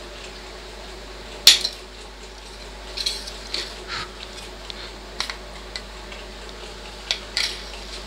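Pliers snipping the wires that run from a microwave magnetron's terminal plug: one sharp snap about one and a half seconds in. After it come lighter metallic clicks and clinks as the pliers and the magnetron's steel casing are handled.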